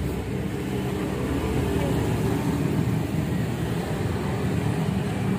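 A motor vehicle's engine running, a steady low rumble.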